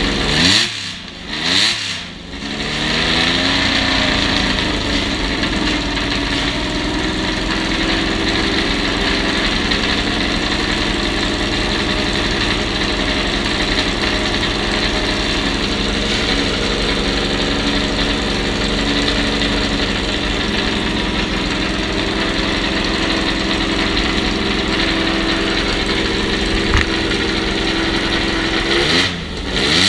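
Lancia Stratos's Ferrari Dino V6 idling, blipped twice in quick succession about a second in and twice more near the end, settling back to a steady idle in between.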